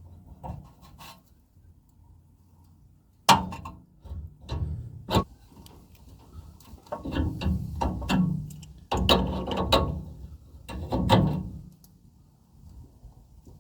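Clinks, knocks and rattling of metal hand tools and pipe fittings being handled, in bursts, with a sharp knock about three seconds in.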